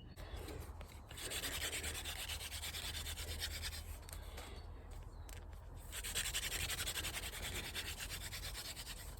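Hand-drill friction fire: a wooden spindle spun back and forth between the palms, its tip grinding in the hearth board with a steady rasping rub, easing briefly in the middle. The dust it is making is warm but not yet black, short of the heat for an ember.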